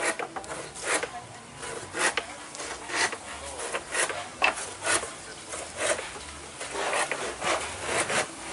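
A carpenter working timber with a hand tool: rasping strokes of metal on wood, about one a second, coming a little faster near the end.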